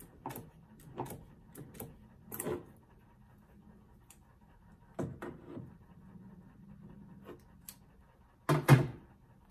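Hand tools clicking and knocking against copper pipe and the fittings at a water softener's valve, in scattered single taps. Near the end come two loud knocks close together, as a tool is set down on a shelf.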